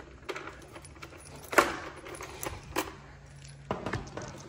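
A few sharp clicks and knocks of an e-bike's down-tube battery being unlocked with its key and slid off its mounting plate, the loudest about one and a half seconds in.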